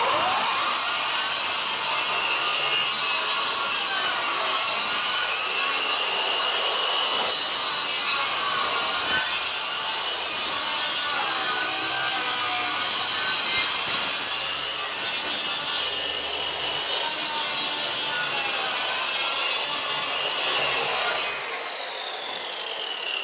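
Electric saw running continuously as it cuts along the seams between old wooden floorboards, with a motor whine that shifts a little in pitch. The seams are being sawn so the loose boards no longer rub together and squeak.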